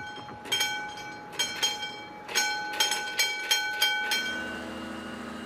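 Warning bell of a hand-cranked level-crossing barrier ringing in a quick, irregular series of metallic strikes as the barrier is wound down. It falls silent about four seconds in, and a low steady hum sets in.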